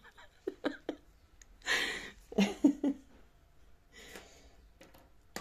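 A woman's breathing and a few soft vocal sounds: a breathy exhale about two seconds in, followed by brief murmured voicing, and a sharp click near the end.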